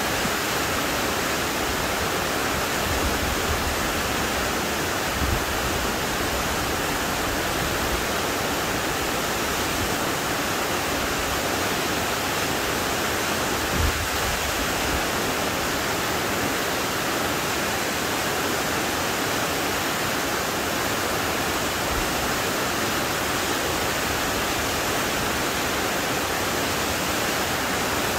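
Shequaga Falls, a high waterfall partly encased in ice, rushing in a steady, unbroken roar of falling water. A brief low bump sounds about halfway through.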